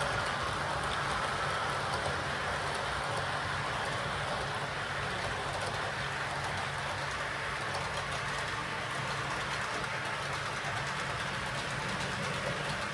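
Model train running on the track: a model electric locomotive hauling a line of tank wagons, with a steady rolling rumble from wheels on the rails and a low motor hum, dying away a little near the end as the train moves off.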